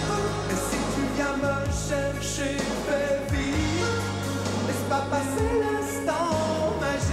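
1980s French pop song playing: steady bass and drums, with a voice singing the melody.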